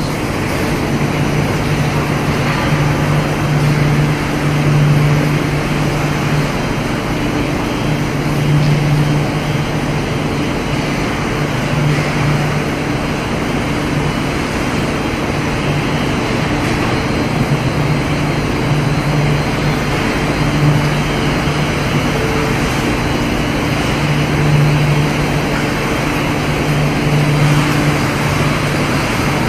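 Electric arc welding: a steady hiss over a low hum that swells and fades every few seconds.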